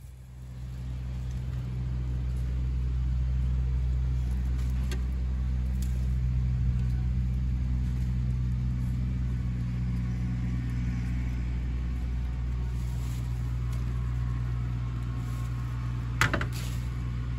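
An engine running steadily, a low even drone, with a few sharp knocks of a shovel against a wheelbarrow.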